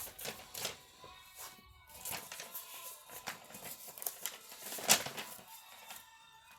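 Background music with scattered sharp clicks or taps, the loudest about five seconds in; the music fades low near the end.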